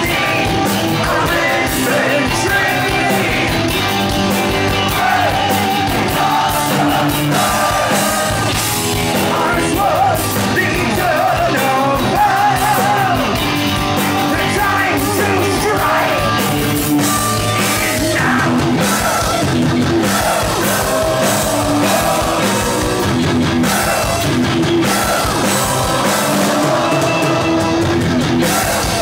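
Heavy metal band playing live: distorted guitars and drum kit under a singer holding long lines with a wide vibrato.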